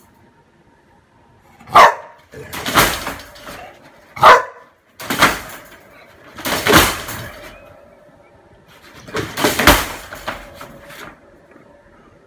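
A bulldog barking in a string of about six outbursts a second or two apart. The first two are short and sharp, and the later ones are longer and noisier.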